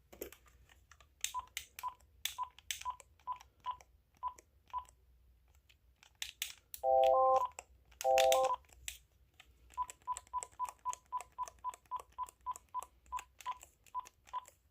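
Keys being pressed on a Uniden TRU9488 cordless phone handset: each press clicks and sounds a short high beep, first a run of about eight beeps, then two brief louder multi-note tones a second apart in the middle, then a quicker run of about fifteen key beeps.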